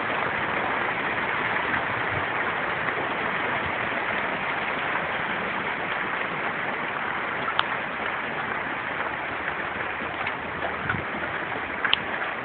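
Heavy hail pouring down: a dense, steady hiss of countless small hailstones striking, with a few sharper single hits standing out, one about halfway through and one near the end.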